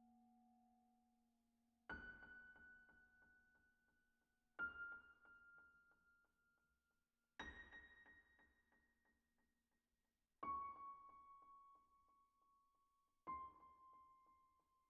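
Slow, quiet piano music: five single notes struck about every three seconds, each ringing out and fading before the next.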